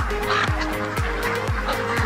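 A flock of Indian runner ducks quacking over background music with a steady beat of about two kicks a second.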